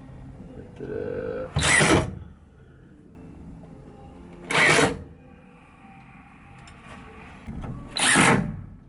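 Cordless drill with a long 1/4-inch nut driver driving screws to fasten a bracket, run in three short bursts about three seconds apart.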